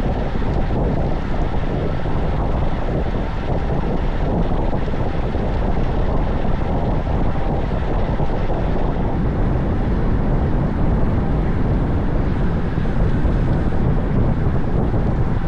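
Steady wind noise buffeting the microphone of a camera riding along on a moving road bike.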